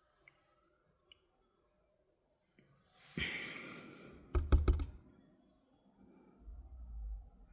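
Handling noise from a wooden loudspeaker cabinet being worked on: a short hissing rush, then a quick run of four or five sharp knocks about halfway through, and a few low dull thuds near the end.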